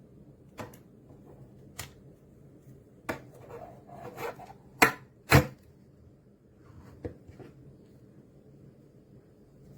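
JISULIFE mini portable fan running with a steady low hum, while it is handled: about half a dozen clicks and knocks, the loudest two near the middle.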